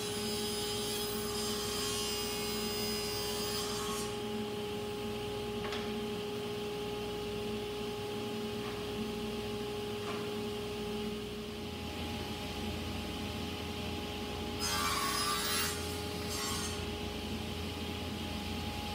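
Sliding table saw running with a steady whine, its blade cutting through wood: one cut over the first four seconds and another, shorter cut about fifteen seconds in.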